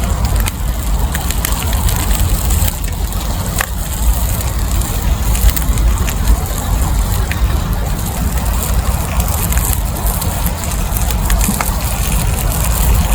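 Campfire crackling, with scattered sharp pops over a constant low rumble.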